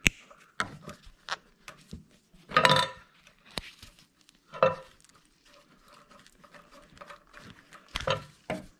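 Clicks, scrapes and rubbing of a rubber vacuum line being worked off the nipple of an old electric brake vacuum pump and the pump being handled, with a sharp click at the start and louder scraping bursts about three and eight seconds in.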